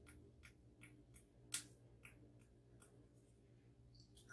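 Near silence with faint clicks and taps as a small aluminium wax tin is turned over in the fingers; one sharper click about one and a half seconds in.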